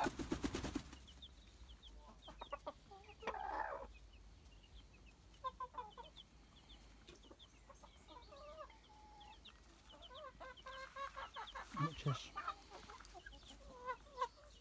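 Mother hen with her chicks: a brief flurry of wing flapping at the start, then the hen's soft clucking mixed with the chicks' many short, high peeps.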